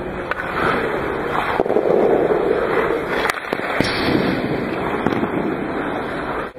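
Ice hockey skates scraping on the ice, with sharp cracks from a stick shooting a puck and the puck striking the goaltender's pads, the loudest two about half a second apart a little over three seconds in.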